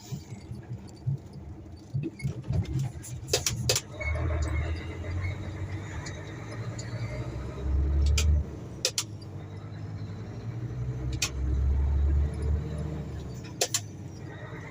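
Concrete mixer truck's engine running, a low rumble that swells three times, with several sharp clicks and rattles.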